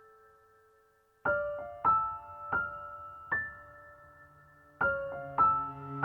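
Slow, gentle ambient piano music: a held note fades almost to nothing, then a sparse run of single notes, each ringing out, starts about a second in, with a low sustained pad coming in near the end.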